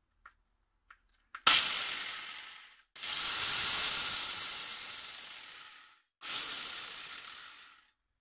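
Angle grinder driving a chainsaw chain round a bar through a homemade adapter, run free in three bursts of a second and a half to three seconds each. Each burst is a loud hissing whir that starts abruptly and fades away. A few small clicks come before the first burst.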